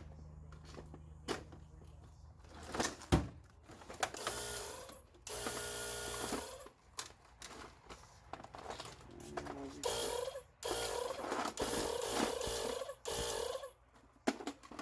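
A small battery-powered tire air pump motor running in short bursts of one to two seconds, switched on and off, with clicks and knocks in between.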